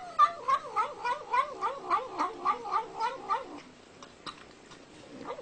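A cat's long, warbling yowl whose pitch wavers up and down about four times a second, lasting about three and a half seconds, followed by a few faint clicks.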